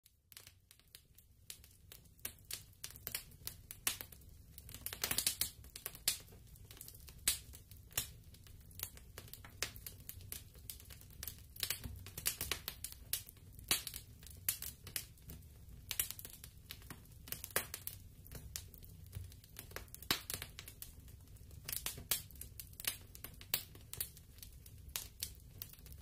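Fire crackling: irregular sharp pops and snaps over a low steady rumble, with a thicker run of pops about five seconds in.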